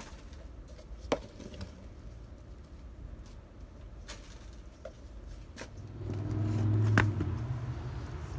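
Light clicks and knocks of a plastic measuring cup scooping loose potting mix from a plastic tote and tipping it into plastic seedling trays. A low droning hum swells near the end.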